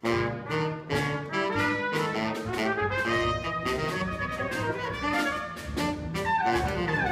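Small chamber ensemble of trumpet, alto saxophone and double bass playing a busy passage of many short notes. It cuts in suddenly.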